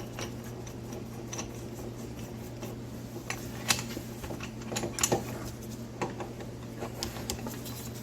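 Metal parts of a wheel-bearing press tool clinking and clicking as its sleeves and big nut are fitted onto a steering knuckle, with a few sharper clanks in the middle, over a steady low hum.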